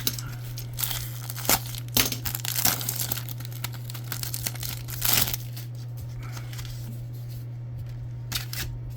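Trading card pack wrapper being torn open and crinkled by hand, a run of crackling tears and rustles for several seconds that eases off after about five seconds, over a steady low hum.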